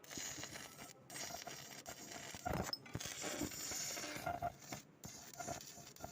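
Stick-welding arc crackling and sputtering steadily as a 7018 electrode burns, with a few brief breaks.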